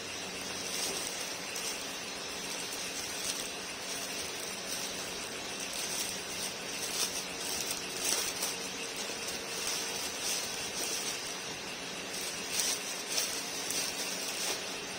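Clear plastic wrapping around a pair of sneakers crinkling and rustling as it is handled and pulled off, in irregular bursts that come thickest in the second half. A steady hiss runs underneath.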